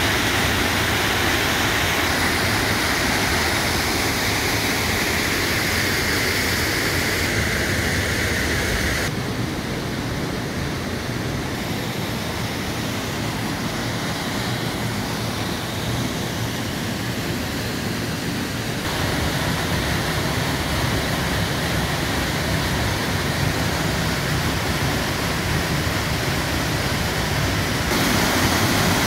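Waterfall pouring down rock into a creek pool, a steady rush of water. From about nine to nineteen seconds in it is quieter and duller, heard from inside the mine entrance.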